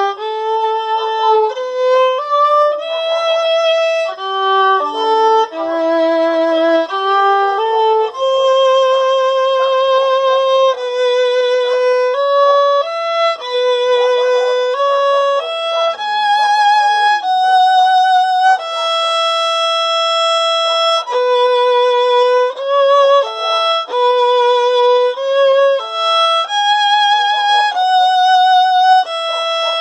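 Solo violin playing a melody one note at a time, many notes held with vibrato.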